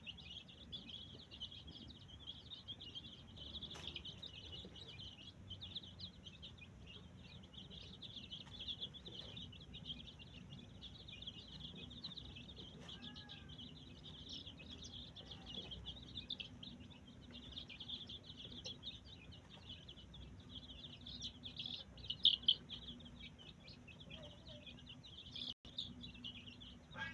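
Many small birds chirping together in a dense, continuous high-pitched chatter, with a couple of louder chirps a little past the middle.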